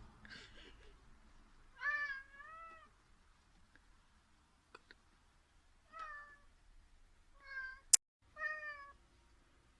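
Domestic cat meowing four times: a longer, two-part meow about two seconds in, then three shorter meows from about six seconds on. A single sharp click comes just before the last meow.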